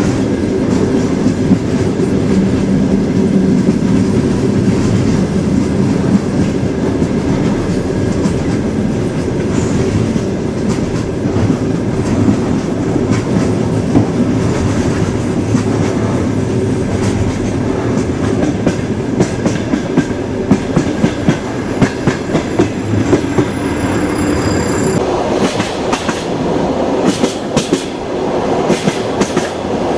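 Passenger train's wheels running on the rails, a steady rumble with rhythmic clickety-clack knocks over the rail joints, heard from inside the carriage. The knocks come in quick clusters in the second half.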